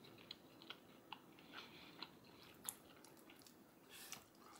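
Faint chewing of a mouthful of chili and rice, with small scattered mouth clicks. About four seconds in, a fork moves through the food on a china plate.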